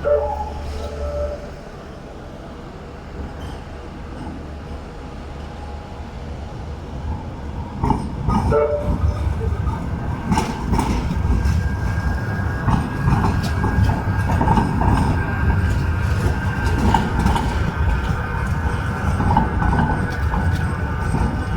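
Manchester Metrolink tram running on street track, its rumble growing louder about eight seconds in, with a steady whine joining soon after. Short warning tones sound at the start and again about eight seconds in.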